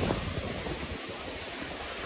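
Steady rushing wind noise buffeting a phone's microphone, easing off slightly at the start and then holding level.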